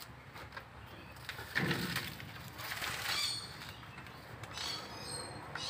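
Sun bear tearing and chewing at a coconut's fibrous husk with its teeth and claws, a run of scraping, rustling and cracking sounds, with one louder low sound about a second and a half in. Birds chirp briefly in the background.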